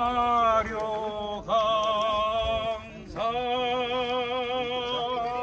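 A man singing unaccompanied in long held notes with vibrato, in several phrases with a short breath about three seconds in.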